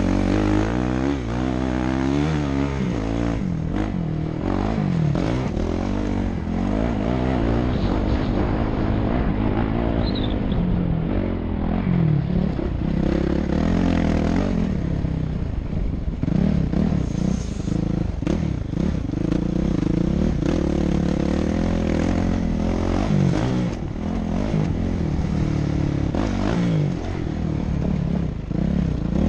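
Motocross dirt bike engine revving up and down as the rider works the throttle around the track, pitch rising on the straights and dropping into the turns, heard from a camera mounted on the bike or rider.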